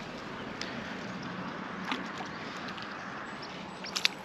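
Faint steady outdoor background with a few small clicks, then near the end a hooked white perch begins splashing at the water's surface as it is pulled in.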